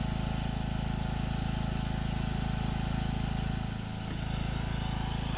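Lawn mower engine running steadily at constant speed, powering the jump start; the loudness dips briefly about four seconds in.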